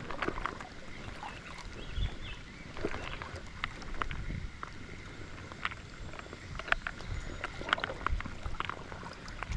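People wading through a shallow creek: water sloshing and splashing around their legs, with scattered small clicks and knocks.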